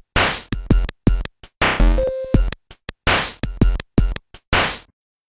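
Short electronic intro jingle: staccato drum-machine hits broken up by brief silences, with a short synth tone and pitch sweep about two seconds in. It cuts off just before the end.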